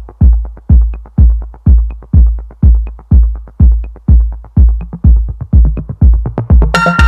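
Electronic dance music with a heavy bass kick drum beating about twice a second; a synth melody comes in near the end.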